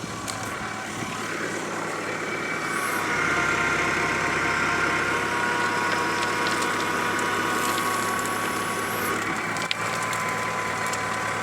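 450 mm earth auger boring into rocky ground, a continuous grinding and crunching over the steady hum of the machine driving it. The grinding builds about two seconds in and then holds.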